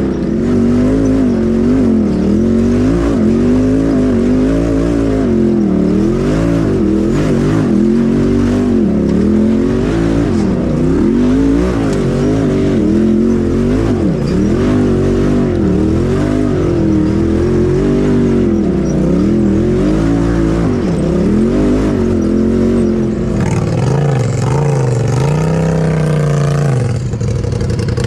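Polaris RZR Turbo side-by-side engine heard from the cab, its pitch rising and falling again and again as the throttle is worked over rocks. About 23 seconds in it drops to a lower, steadier note as the machine eases to a near stop.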